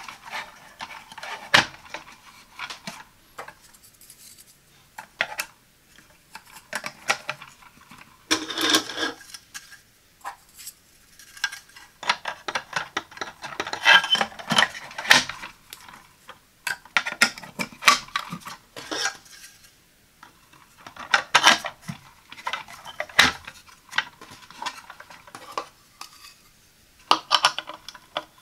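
Hard plastic tiers of a coffee pod carousel being handled and fitted together: irregular clicks, clacks and light rattling in short bursts with brief pauses between them.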